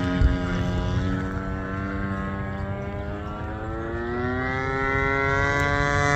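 Gas engine and propeller of a radio-controlled airplane droning steadily in flight. The pitch dips slightly, then rises as it grows louder in the second half. A brief low thump comes just after the start.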